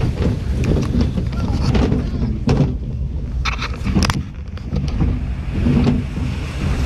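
Rumbling and knocking of a river-rapids raft ride on the move, with rushing water and frequent knocks close to the action camera's microphone.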